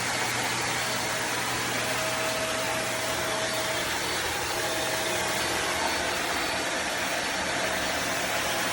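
iwoly V600 corded stick vacuum running, a steady whooshing motor noise with a constant low hum and a faint whine.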